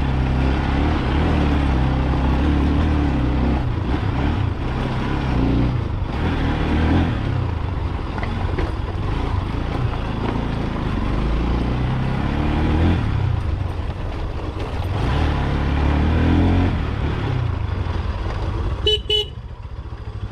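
A 200 cc single-cylinder motorcycle engine running under way, its pitch rising and falling as the throttle opens and closes, with wind noise over it. Near the end a horn gives two short beeps, and the engine settles to a steadier low note.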